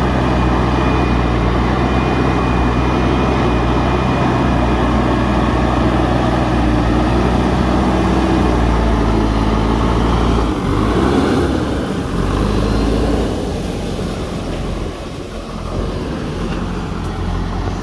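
JCB 3DX backhoe loader's diesel engine running steadily under working load. About ten seconds in its note shifts, and it runs quieter near the end.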